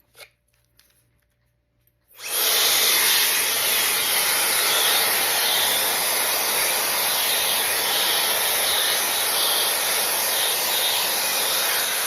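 Shark FlexFusion hair dryer switched on about two seconds in, then blowing a loud, steady rush of air. A few faint clicks come just before it starts.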